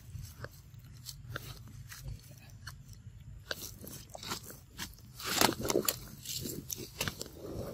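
A macaque biting and chewing a ripe yellow fruit close to the microphone: a run of short wet crunches and smacks, densest and loudest a little past halfway.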